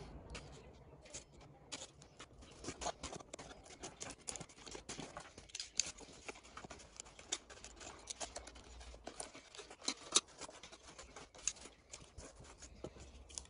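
Box cutter slicing through thick cardboard in irregular short scratchy strokes, with the cardboard rustling and knocking as it is handled and the cut-out notches come loose.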